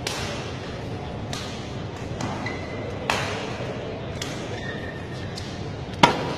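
Badminton rackets striking the shuttlecock in a rally: four sharp hits with hall echo, the loudest about six seconds in. Short shoe squeaks on the court come between the hits.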